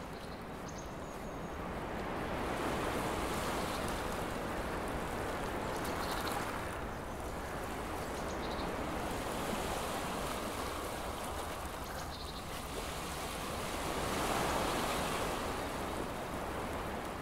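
A steady rushing noise like surf, swelling and easing every few seconds, with a few faint high tinkling notes.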